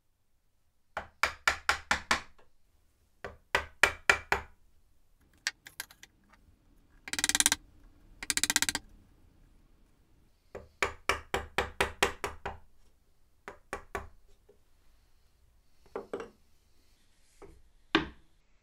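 Small one-piece oak mallet tapping a wooden-handled chisel, chopping dovetail sockets in a board. Three quick runs of five to eight light blows, two short rasping bursts in the middle and a few single taps near the end.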